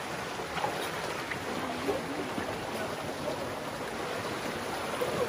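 Steady rush of flowing water from a shallow wadi stream.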